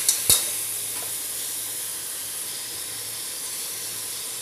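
Rice and mint sizzling in hot ghee in a pressure cooker: a steady, soft hiss. There are two sharp knocks at the very start.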